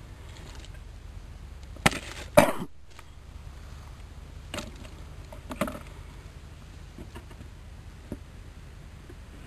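Wooden hive parts being handled: two sharp knocks about two seconds in, the second dragging into a short scrape, then a few fainter knocks.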